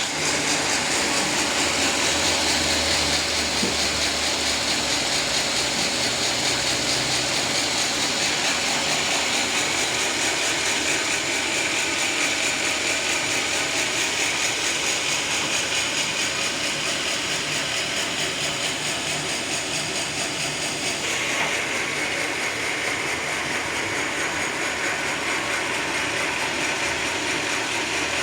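Sawmill saw running as it cuts through a teak log: a loud, steady mechanical whir with a fine, even rattle. Its tone changes about 21 seconds in.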